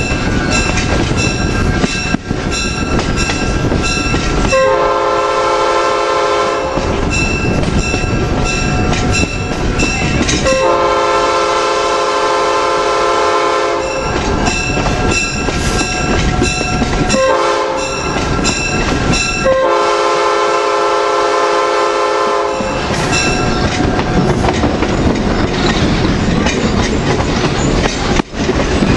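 Diesel locomotive's multi-chime air horn sounding the grade-crossing pattern of long, long, short, long blasts, heard from a car further back in the moving train. Under it runs the steady rumble and clickety-clack of the passenger car's wheels on the rails.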